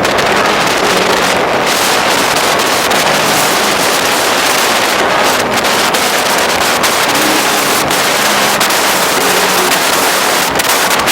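Wind rushing over the microphone from a moving vehicle, loud and steady, with the vehicle's engine running faintly underneath.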